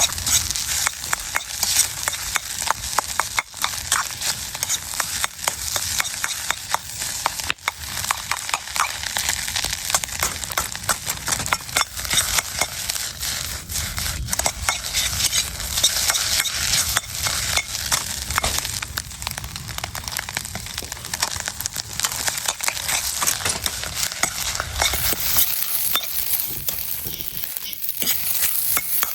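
Fried rice being stir-fried in a wok over a steady sizzle, with a spatula scraping and clacking against the pan again and again. Near the end the clacking thins out and the sizzling hiss grows brighter.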